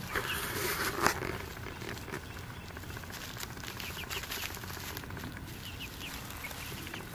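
Young hens foraging in pine-needle mulch: rustling and scratching, with a sharp tap about a second in, then quieter, with a few faint short high calls.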